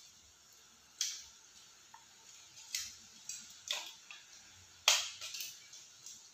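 A handful of sharp plastic clicks and taps from handling the opened casing parts of an Airtel TV remote, spaced irregularly, the loudest about five seconds in.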